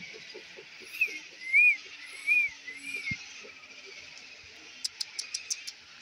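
Wild birds calling in a nesting colony: four arched, rising-and-falling whistled notes about a second in, then a quick run of six sharp high notes near the end, over a steady high hiss.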